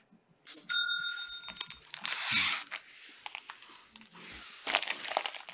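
Foil trading-card pack wrappers being torn open and crinkled, the loudest tear about two seconds in. A short bell-like ding rings for about a second near the start.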